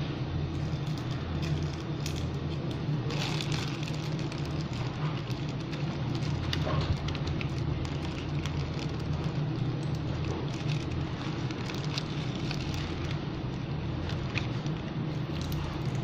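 Clear plastic bag crinkling and rustling as it is handled, with scattered sharp crackles over a steady low hum.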